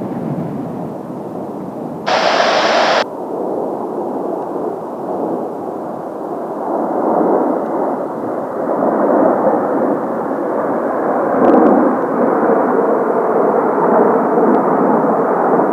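Jet roar from Blue Impulse's Kawasaki T-4 trainers in formation, a steady rushing noise that slowly grows louder. About two seconds in, a one-second burst of radio static cuts in and stops abruptly.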